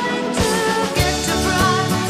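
Live pop-rock band playing, with a steady drum beat about every half second under electric guitar, double bass and sustained melody lines.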